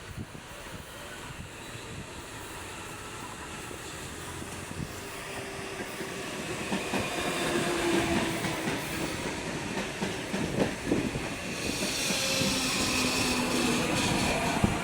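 CPTM Série 2070 electric multiple unit pulling into a station, getting steadily louder as it nears. It gives a growling rumble with steady humming tones and irregular wheel clatter on the rails. A high hiss comes in near the end.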